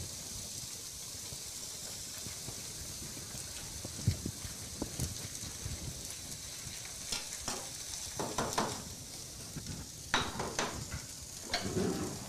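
Steady sizzle of food frying in hot pans on a stove, a salmon fillet among them. A silicone spatula stirring and scraping in a small saucepan adds scattered light clicks and scrapes, more often in the second half.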